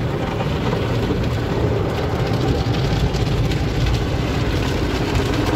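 Automatic tunnel car wash heard from inside the car: a steady rumbling swish of the wash machinery and water scrubbing foam across the windshield and body.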